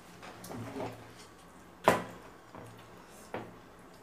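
Close-up eating sounds from rice eaten by hand off a metal plate: soft mouth and hand noises with a few clicks, the loudest a sharp click about two seconds in.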